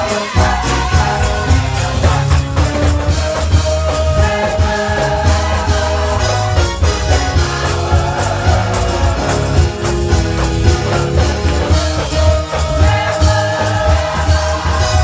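Live gospel music: a church choir singing over bass, keyboard and drums, with a tambourine or other shaker keeping a steady beat.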